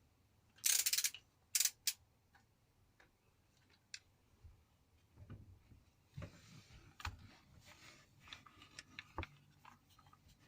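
Handling noise from hand work on wiring: scattered clicks and light knocks, with a louder burst of noise about a second in and two short ones just after.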